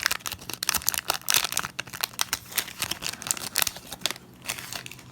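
Foil Pokémon booster pack wrapper being torn open, with a dense run of crinkling and crackling that thins out about four seconds in.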